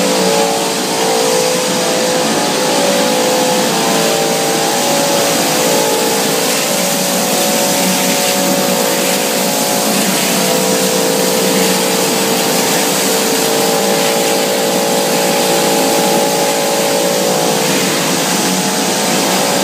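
Running cereal extrusion production line machinery: a loud, steady rushing noise with several even humming tones, unchanging throughout.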